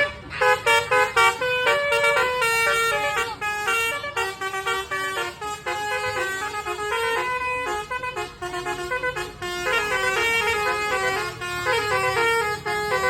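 Basuri 'telolet' multi-trumpet horn playing a tune: a quick run of short, stepped notes that goes on without a break.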